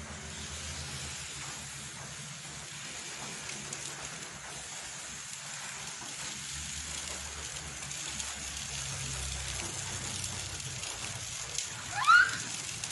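Hot steel horseshoe held against a horse's hoof during hot fitting, the hoof horn searing with a steady hiss. Near the end a short, loud rising squeal cuts in.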